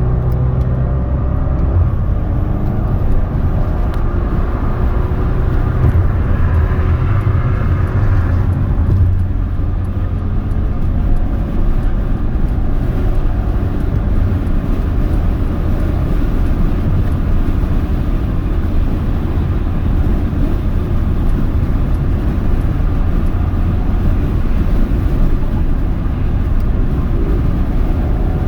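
Inside the cabin of a Mercedes-AMG GLA 35 at highway speed with the panoramic roof open: steady wind and road rush over the turbocharged 2.0-litre four-cylinder engine. About six seconds in the engine note climbs for a few seconds, then drops back into the rush.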